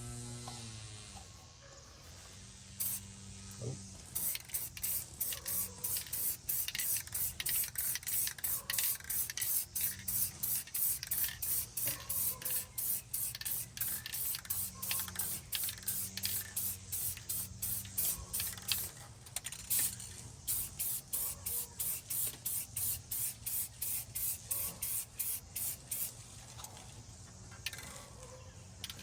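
Aerosol spray-paint can spraying in short, quick bursts, about two or three a second, starting about four seconds in and stopping shortly before the end.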